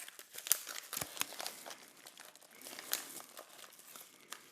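Packaging being rustled and crinkled by hand as a mail package is unpacked, with a string of irregular sharp clicks and crackles.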